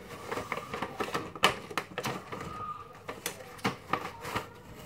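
Hands rummaging among small hard objects to fetch a plastic drinking straw: a run of irregular clicks, taps and knocks, the sharpest about a second and a half in.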